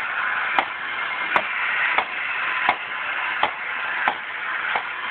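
Motorized bartender toy running with a steady mechanical noise, and a sharp click or knock about every 0.7 s as its arm shakes the cocktail shaker.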